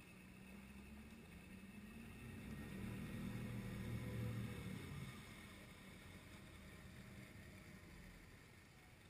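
Suzuki outboard motor running in reverse to back a boat off its trailer, throttled up to its loudest about four seconds in with prop wash churning, then easing back down to a low running hum.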